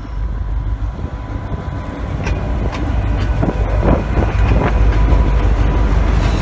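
DBR-class diesel-electric locomotive passing at close range at low speed: deep engine rumble growing louder as it draws alongside, with a steady whine over it. A run of sharp clanks comes from about two to five seconds in.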